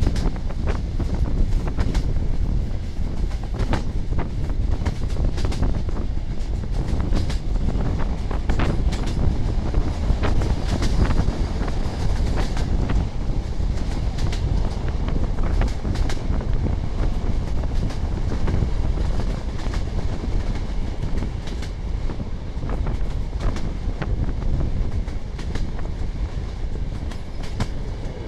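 Passenger coaches of a locomotive-hauled train running at speed, the wheels clacking over rail joints again and again over a steady rumble, heard through an open carriage window.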